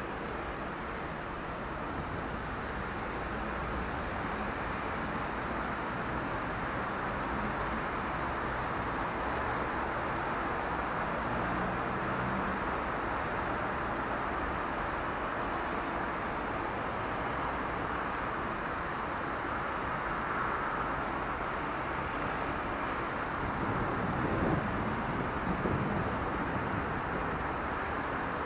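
City street traffic: a steady rush of tyres and engines as cars pass continuously, with a louder vehicle's rumble swelling near the end.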